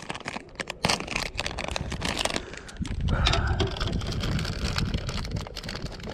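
Crinkling and clicking handling noise from hands working a gummy worm out of a plastic candy bag and onto a Ned rig hook. From about three seconds in, a low rumble of clothing rubbing against the camera.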